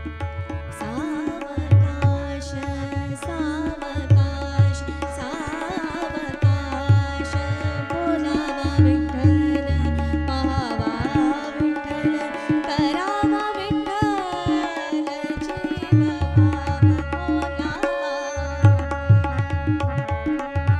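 Marathi devotional abhang performed live: a woman's singing voice over a harmonium holding steady chords and a tabla keeping a rhythm with deep bass strokes.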